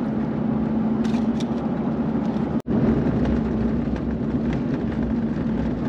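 Steady road noise and engine hum heard from inside a moving vehicle, dropping out for an instant about two and a half seconds in.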